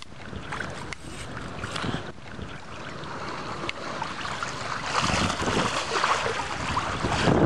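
Wind on the microphone with lake water washing against a concrete breakwater. The hiss grows louder about five seconds in, and low gusts buffet the microphone near the end.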